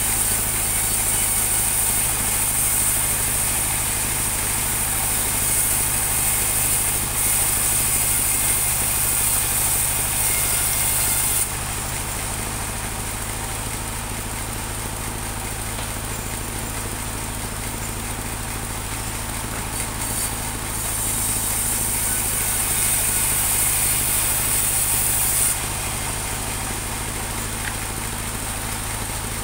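Engine-driven mobile band sawmill running steadily. Twice the bandsaw blade cuts through a teak log, adding a louder, high hiss: for about the first eleven seconds, and again for about five seconds past the middle.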